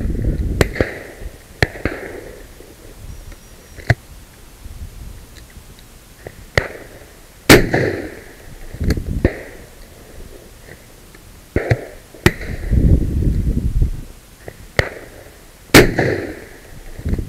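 Shotgun shots. Three loud, close reports come about halfway through, at about twelve seconds and near the end, and fainter, more distant shots from other guns fall between them. A low rumbling noise follows several of the shots.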